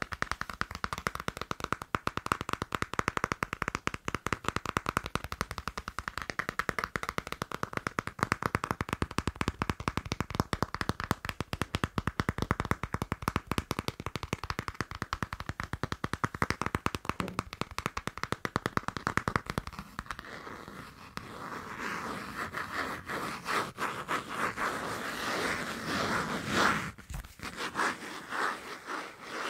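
Very fast tapping on a passport, many taps a second, changing about two-thirds of the way through to scratching on it.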